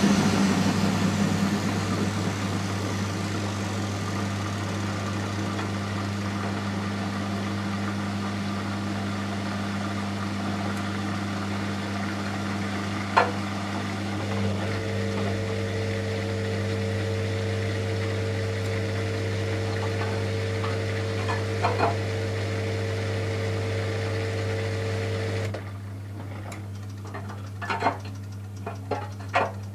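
Miele Softtronic W 435 Plus washing machine running mid-program: a steady mechanical hum under a watery noise, which cuts off abruptly about 25 seconds in, leaving a lower hum and a few sharp clicks.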